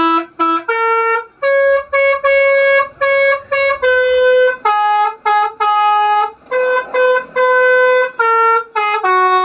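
Telolet horn, a multi-tone musical air horn, playing a quick tune: about eighteen notes, short blasts mixed with longer held ones, stepping up and down in pitch with brief gaps between them.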